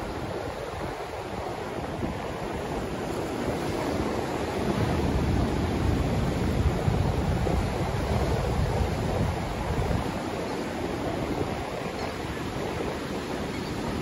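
Atlantic Ocean surf breaking and washing up a sandy beach: a continuous wash of waves that swells about four seconds in.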